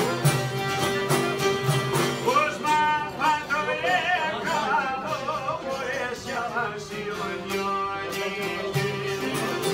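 Albanian folk ensemble of long-necked lutes, violin, accordion and frame drum playing a steady beat, with a man singing a wavering, ornamented melody from about two seconds in until about seven seconds in.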